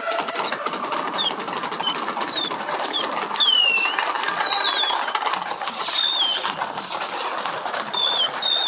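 Fireworks crackling densely and without a break, with a string of short high whistles, most of them falling in pitch, from whistling fireworks.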